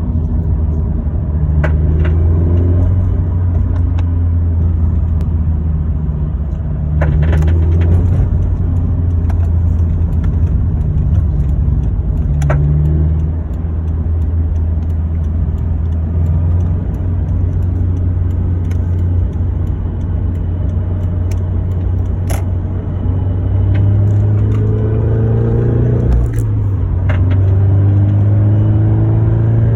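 Scion FR-S/BRZ's 2.0-litre flat-four running with a steady drone that rises in pitch over the last several seconds as it accelerates. A handful of short sharp clicks or pops are scattered through it. These are the intermittent creak and pop under load that the owner suspects comes from a loose exhaust hanger or torque rod, though it seems to come from the intake.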